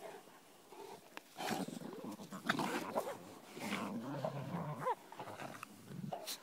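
A West Highland white terrier and a Black Russian terrier play-fighting, growling in irregular bursts that are busiest through the middle.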